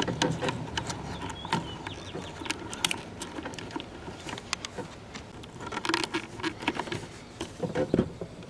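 Handling noise from a small opened clock radio: scattered clicks, taps and light rattles of its plastic cabinet and chassis being moved and turned, with a busier burst of rattling about six seconds in and again near the end.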